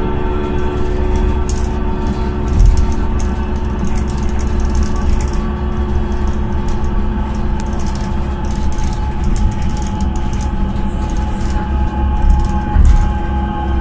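Inside a bus moving along an elevated busway: a steady low rumble with a steady hum of several tones on top, and two louder thumps, one about two and a half seconds in and one near the end.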